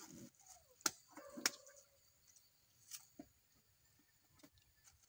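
Macaques feeding from a metal tray of cut fruit. There are a few sharp clicks and knocks, the two loudest about one and one and a half seconds in, and a few fainter ticks later on.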